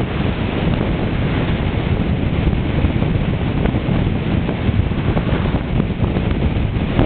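Steady wind buffeting the microphone over the running noise of a moving car on the road.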